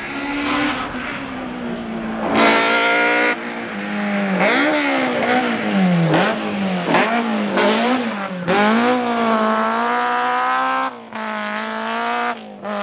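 Rally car engine at full speed, approaching and passing: the revs rise and fall repeatedly through gear changes and lifts, climb in one long pull, then cut sharply near the end and pick up again as the car pulls away.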